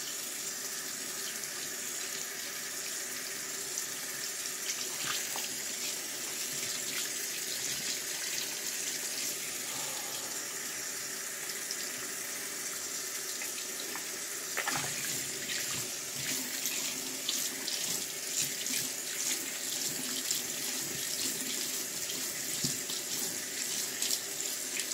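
Bathroom sink tap running steadily while earrings are washed under it, busier with splashing and small clicks from about halfway through.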